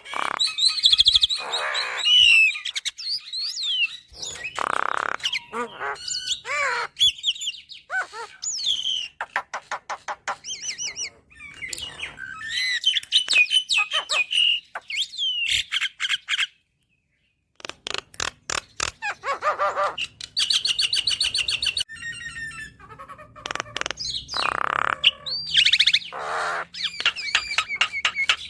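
Javan myna singing a long, varied song of whistled and sweeping notes, rapid clicking trills and harsher chattering calls. It breaks off for about a second roughly two-thirds of the way through.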